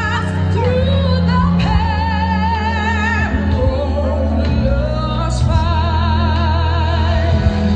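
The laser show's soundtrack: a singer holding long notes with wide vibrato over a steady low accompaniment.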